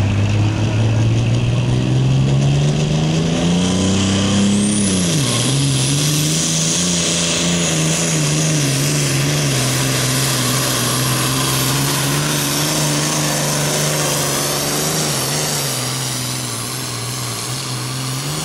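Diesel pulling tractor running at full throttle while hauling a weight-transfer sled. The engine's pitch climbs over the first few seconds, drops sharply about five seconds in, then holds steady and grows fainter as the tractor moves away down the track.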